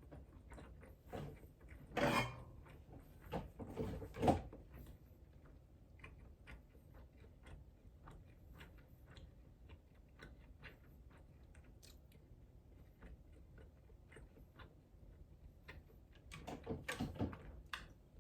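Close-miked eating: soft chewing and small wet mouth clicks, with louder short bumps or knocks about two and four seconds in and a busier cluster of clicks near the end.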